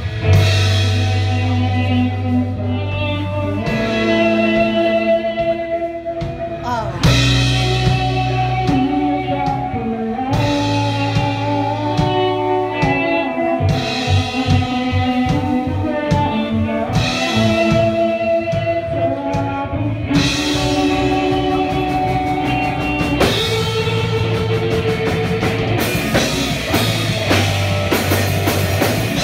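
Live rock band playing: electric guitars and a drum kit, with a woman singing into a microphone.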